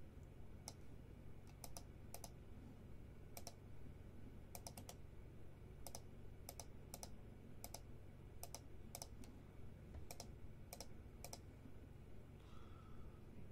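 Faint, irregular clicking of computer keys, a few strokes at a time, often in quick pairs, with short pauses between, over a low steady hum.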